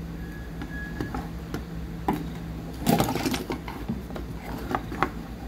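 Handling noise from a charger circuit board being moved and set down on a workbench: scattered clicks and knocks, the loudest cluster about three seconds in, over a low steady hum.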